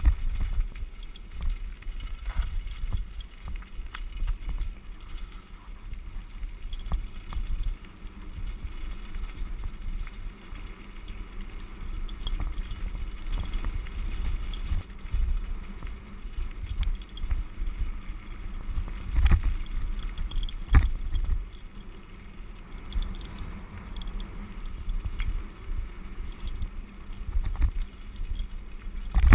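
Mountain bike rolling fast down a loose gravel road, heard from a camera on the rider: steady wind rumble on the microphone, crunch of tyres on gravel and constant small rattles from the bumps, with a couple of heavier knocks about two-thirds of the way through.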